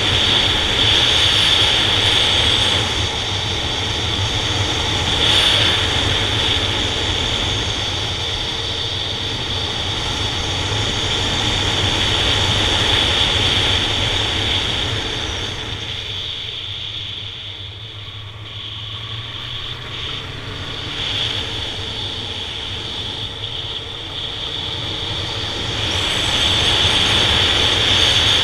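Honda Nighthawk 750's air-cooled inline-four running under way, with heavy wind rush over the microphone. It eases off for a few seconds past the middle, then builds again near the end.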